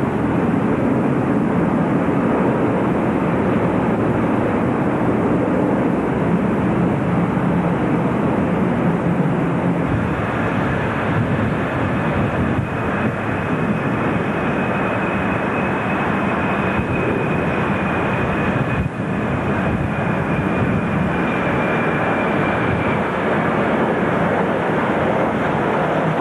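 Jet airliner engine noise: a steady rumble from a wide-body tri-jet on the runway, then, after about ten seconds, a Boeing 737-400 on approach. Its engines add a steady high whine over the rumble.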